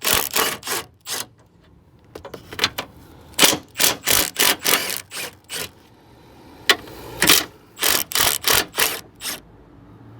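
A wrench working the three 14 mm top-mount nuts of a front strut loose: a quick run of short, sharp clicking strokes in three bunches, one for each nut.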